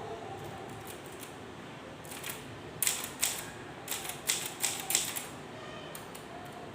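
K Clover 815 manual typewriter being typed on: a run of about seven sharp key strikes clacking against the platen, bunched between about two and five seconds in.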